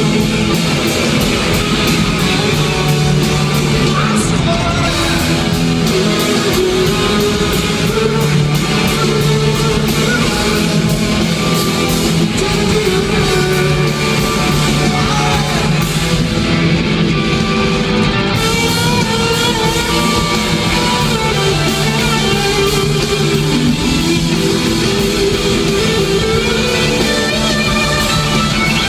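Live rock band playing loud through an arena PA: electric guitars, bass and drums with a lead vocal, heard from the audience.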